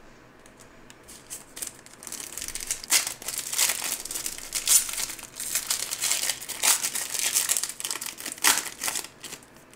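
Plastic trading-card pack wrapper being handled, crinkling and crackling irregularly, as a sealed card pack is torn open; the crinkling starts about two seconds in.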